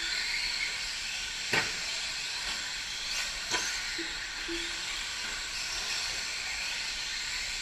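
Radio-controlled 4WD short course trucks racing on a clay track: a steady high hiss of motors and tyres, with a sharp knock about a second and a half in and another two seconds later. A couple of short low beeps sound about four seconds in.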